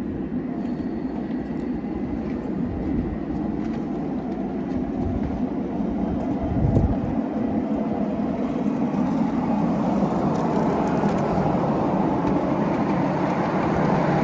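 A 5-inch gauge ride-on train running along the track: a steady rumble of wheels on rail, with wind buffeting the microphone. It grows louder toward the end, with a single bump about seven seconds in.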